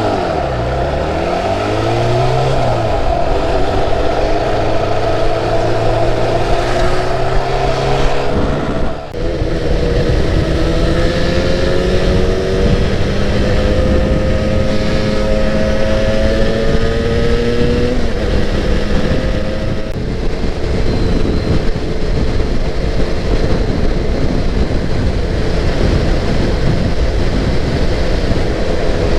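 Yamaha R1-Z two-stroke twin engine running under way. The note drops at the start, breaks for a gear change about nine seconds in, and climbs slowly for several seconds before another shift and a steady cruise. The exhaust chamber has freshly replaced silencer packing and now runs without the earlier popping leak.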